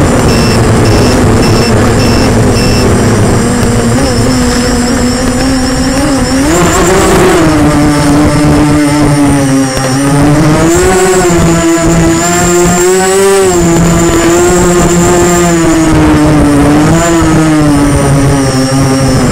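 Quadcopter motors and propellers running close to the onboard camera, a steady pitched whine that rises and falls as the throttle changes. A faint high pulsing beep sounds during the first three seconds.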